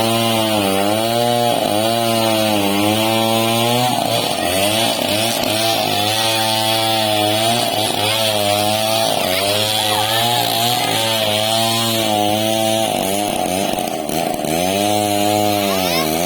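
Chainsaw running under load as it cuts through a large log, its engine pitch sagging and recovering about once a second as the chain bites, over a steady rasp of the cut.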